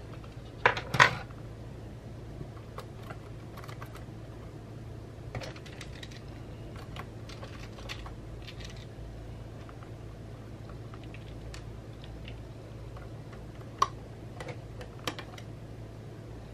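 Light clicks and taps of small metal parts and tools handled on a wooden desk: two louder knocks about a second in as the perforated metal fan grille is set down, then scattered faint ticks of a precision Torx screwdriver being picked up and handled, with a sharp click near the end.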